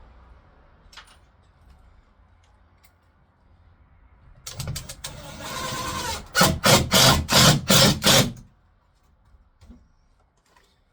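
Power drill-driver driving a screw to mount a box to a wall stud. The motor starts about four and a half seconds in and runs up. It then goes in a string of six or seven short, loud pulses, about three a second, and stops about eight seconds in.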